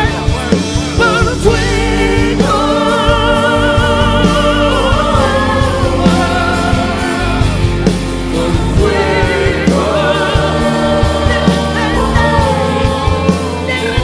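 Christian worship music with singing: long held sung notes with vibrato over a steady instrumental backing.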